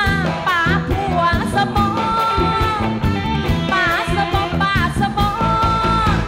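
A woman singing a Thai luk thung song live with a full band, over a steady drum and bass beat. Her voice holds long notes and slides in pitch on some words.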